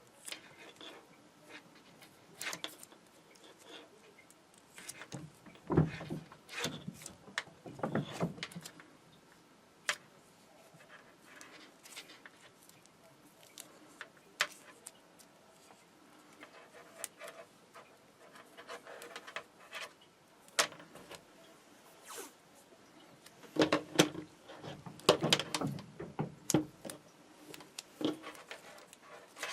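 Black vinyl electrical tape being pulled off the roll in short rasping strips and wrapped around a soldered wire joint, with small handling clicks. The louder pulls come in two clusters, about six to eight seconds in and again near the end.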